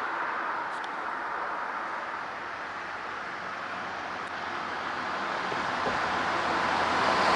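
Steady outdoor road-traffic noise, growing louder over the last two seconds or so.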